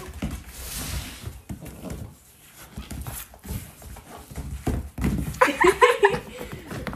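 A puppy and a lamb scampering and scuffling on a carpeted wooden floor, paws and small hooves tapping and thudding irregularly. A few short high-pitched cries come about five and a half seconds in.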